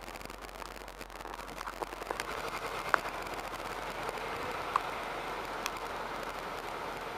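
Steady road and traffic noise from a car moving slowly down a city street, a hiss with no clear engine note. A few sharp clicks cut in, the loudest about three seconds in.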